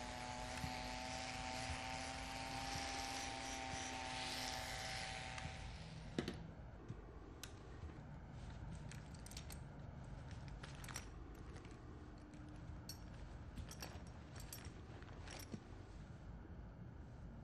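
A steady hiss with a faint hum for about six seconds, ending with a sharp knock, then scattered small clicks and light metallic handling sounds as small objects are worked on by hand.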